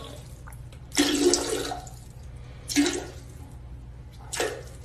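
Domestic cat meowing three times: the first and longest call about a second in, then two shorter ones, over a low steady hum.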